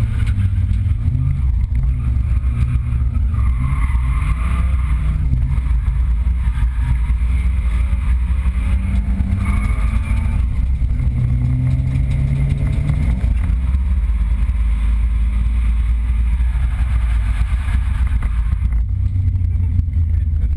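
Nissan 200SX engine heard from inside the cabin, running hard through a drift with the revs rising and falling repeatedly.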